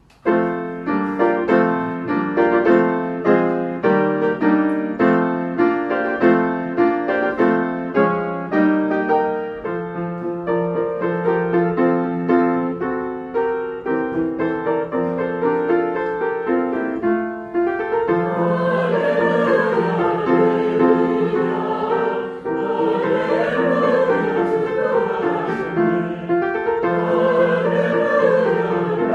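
A piano plays an introduction of evenly repeated struck chords; about eighteen seconds in, a church choir comes in singing over the piano accompaniment.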